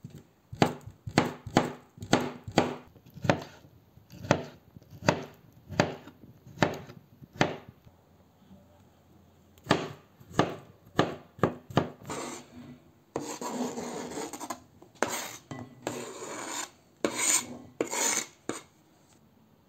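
A knife chopping boiled beetroot on a cutting board, about two sharp knocks on the board a second with a short pause midway. In the last few seconds the blade scrapes over the board in rasping strokes as the diced beetroot is pushed off.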